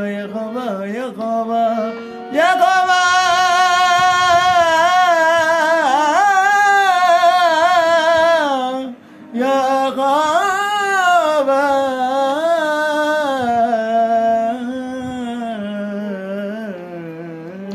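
A man singing a Punjabi Christian devotional song, drawing out long wavering notes with no words. There is a brief break about nine seconds in, and the voice grows quieter toward the end.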